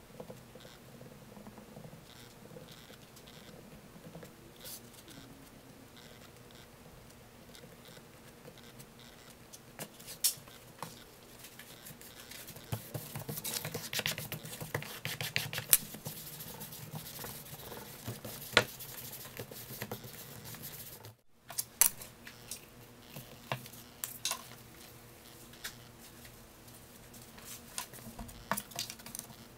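Hands rubbing and pressing leather onto glued board: soft scratching and rustling with scattered small clicks and taps, busiest in the middle. A faint steady hum runs underneath, and the sound drops out briefly about two thirds of the way through.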